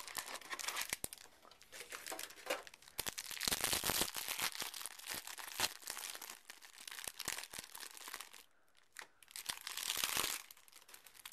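Plastic wrapping of Yu-Gi-Oh! trading-card packs crinkling as it is handled and pulled open. The crackling comes in irregular bursts, loudest about three to four seconds in and again near the end, with a short lull a little before that.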